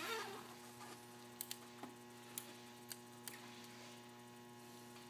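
Steady low electrical hum with about eight faint clicks scattered through it; no fuel pump is heard running, as the car's fuel pump is not priming.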